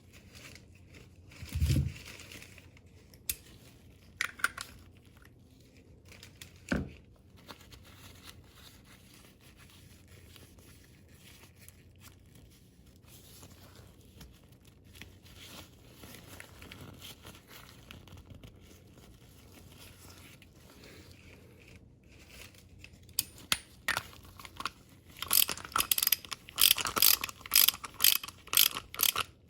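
Handling noise while the oil filter is worked on: a few separate knocks in the first seconds, then a dense run of sharp crinkling, scraping strokes near the end.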